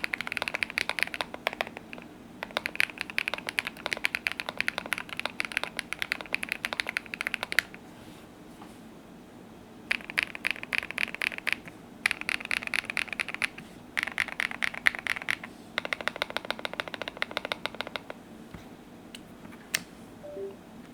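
Typing on a Keychron Q1v2 mechanical keyboard fitted with lubed Bolsa Supply Zaku switches on an FR4 plate and Domikey keycaps: rapid runs of keystrokes with bottom-out clacks. The runs come in bursts of a few seconds with short pauses between them, then thin to a few single clicks near the end.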